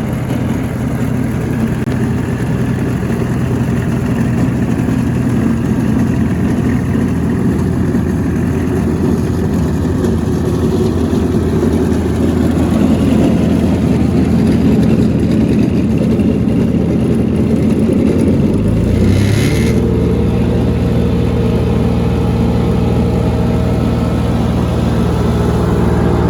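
Diesel engine of a Greenmech Arborist 150MT wood chipper running steadily. About two-thirds of the way through, its note shifts with a brief hiss, then settles into a smoother, even running sound.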